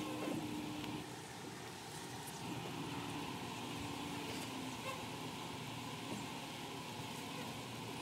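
Faint buzzing of honeybees flying around an open hive, a soft hum that comes and goes over a steady hiss, with a few faint clicks.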